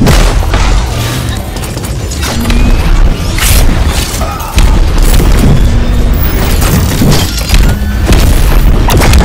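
Movie-style sound effects of a giant-robot fight: repeated heavy booms and crashing impacts, with pavement smashing, layered over loud action music.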